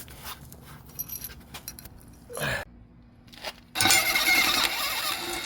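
Light metallic clinks and taps of tools and metal parts, then, about four seconds in, a loud hissing rush that lasts under two seconds and cuts off suddenly.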